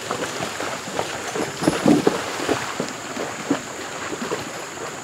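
Draft horses, a wagon team and saddle horses wading through a shallow creek: irregular hoof splashes and knocks over sloshing water, the loudest cluster about two seconds in.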